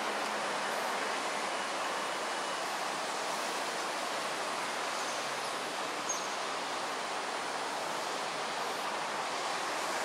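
Steady outdoor rushing hiss at an even level, with a brief faint high tick about six seconds in.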